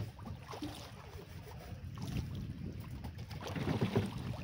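Steady low rumble of wind on the microphone and choppy water aboard a boat at sea, with a few faint knocks.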